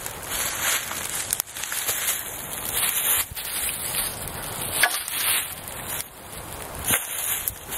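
Freshly lit wood kindling fire burning and crackling, with sharp pops scattered over a steady hiss as the flames catch.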